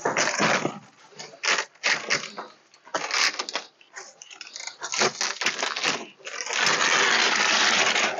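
Cardboard shipping box and packaging rustling and scraping in uneven bursts as a large solar panel is worked out of its box, ending in a steady scraping hiss about six and a half seconds in as the panel and its protective sheet slide free.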